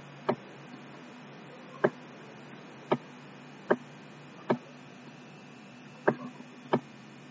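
Seven sharp, irregularly spaced clicks over a faint steady hum: the taps of the pen input as words are handwritten on screen.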